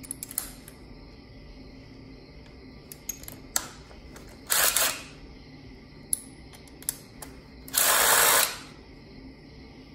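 Metal socket extensions clicking and clacking as they are snapped together onto a cordless impact driver. Two short, louder bursts of noise stand out, the second and longer one near the end.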